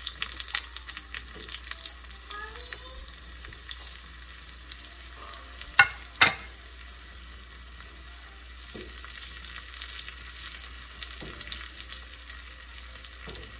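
Sliced shallots sizzling in hot coconut oil with popped mustard seeds in a small tempering pan, stirred now and then with a wooden spoon. Two sharp cracks about six seconds in are the loudest sounds.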